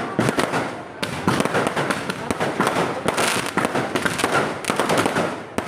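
Fireworks and firecrackers going off in a dense, rapid barrage of overlapping bangs and crackling.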